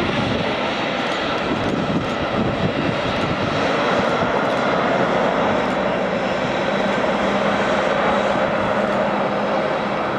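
Airliner engines running close by: a loud, steady rush with a faint steady tone threaded through it.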